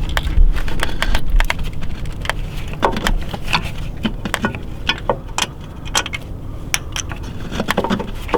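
Irregular clinks and knocks of metal tools and engine parts being handled during engine work, with a low handling rumble in the first second or so.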